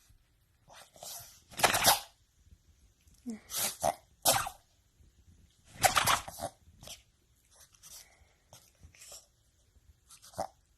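Repeated sneezes: a series of short, noisy bursts a second or two apart, the loudest about two and six seconds in, with fainter ones in between and near the end.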